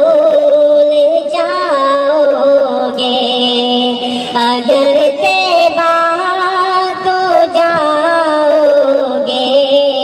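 A naat, an Urdu devotional song, sung by a high voice in a slow bending melody over a steady held humming tone.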